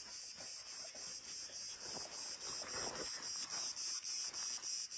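Cicadas singing in a steady high chorus that pulses about three times a second.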